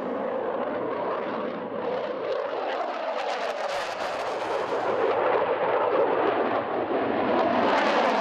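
Jet engines of a MiG-29-family twin-engine fighter flying a display manoeuvre: a rushing jet noise with a ragged crackle that grows slowly louder.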